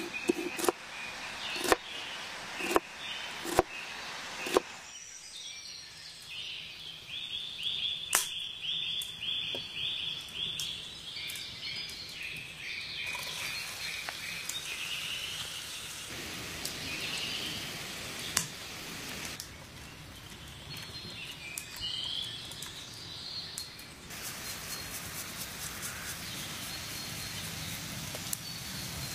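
A knife cutting through red pepper onto a wooden cutting board, one crisp stroke about once a second, stopping after about four seconds. Then birds chirping in repeated short phrases over a soft steady hiss from chopped onion cooking in oil in a frying pan over a wood fire.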